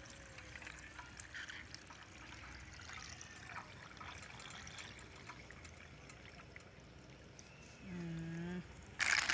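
Thick milky liquid pouring from a plastic bowl onto snails in their shells in a metal wok: a soft, steady trickle. Near the end comes a short held tone, then a sudden louder clatter.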